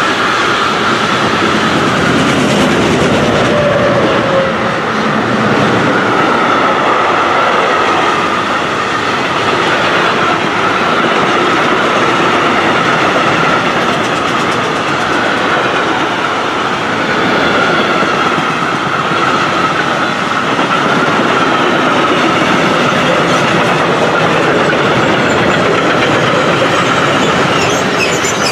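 Freight wagons of a long mixed goods train rolling past close by: a steady, loud rumble and clatter of steel wheels on the rails with a high ringing tone from the wheels over it.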